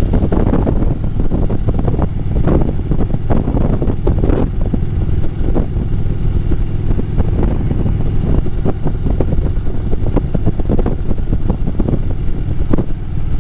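Harley-Davidson motorcycle's V-twin engine running while under way, a steady low rumble, with gusty wind buffeting the microphone.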